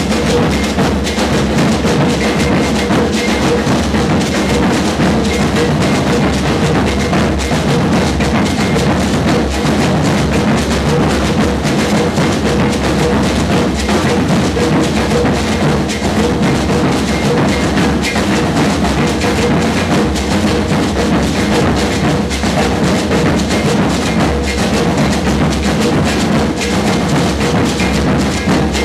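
Loud dance music driven by drums and percussion, playing steadily without a break.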